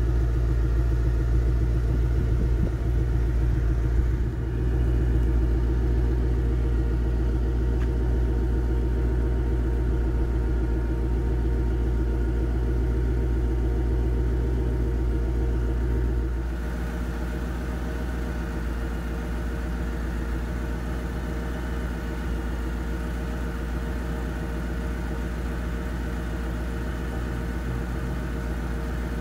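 Ford Mustang GT's V8 engine idling steadily with a low rumble. About 16 seconds in, the idle drops a little and then holds steady.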